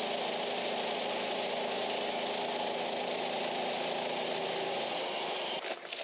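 A power woodworking machine running steadily with a dense whirring noise, then shutting off near the end, followed by a couple of light clicks.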